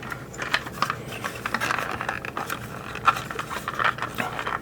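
Hard plastic parts of a 1988 G.I. Joe Rolling Thunder toy vehicle handled and fitted together by hand: a run of small, irregular clicks, taps and scrapes.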